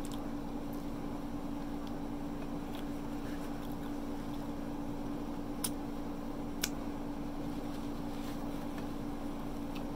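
Steady low hum and hiss of room noise, with faint mouth sounds of chewing and two sharp clicks about a second apart midway.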